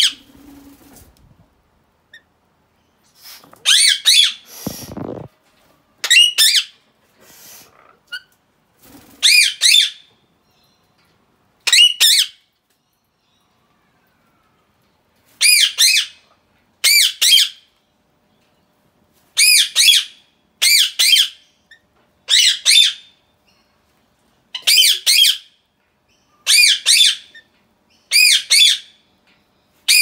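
Pet parrot giving short, loud, high screeching calls over and over, one every one to three seconds, some in quick pairs, with a longer pause around a third of the way through.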